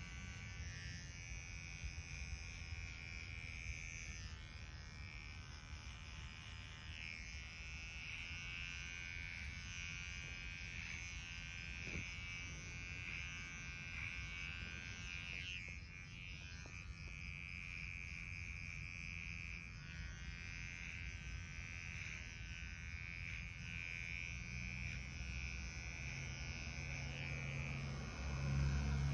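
Cordless hair clipper buzzing steadily as it cuts short hair at the back of the head, worked over a comb; it grows louder near the end.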